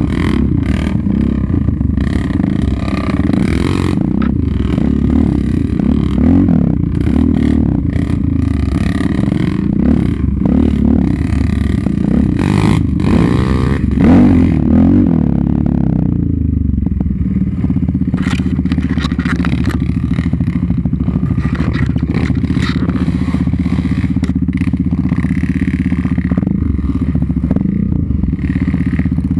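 Yamaha Raptor 700 ATV's single-cylinder engine running under changing throttle, its pitch rising and falling, with rattling and scraping as the quad rides through brush. About halfway through it settles to a steady, even note.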